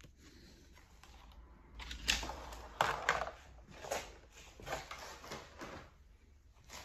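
Pokémon trading cards and their packaging being handled: a string of rustles and light clicks starting about two seconds in.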